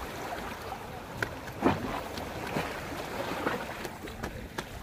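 Sea water washing against the concrete tetrapods of a breakwater, with light wind on the microphone and a few short clicks and knocks.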